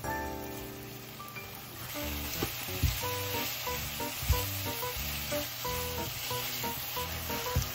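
Food sizzling in a frying pan, starting about two seconds in, with a few sharp knocks of a utensil against the pan, over light background music.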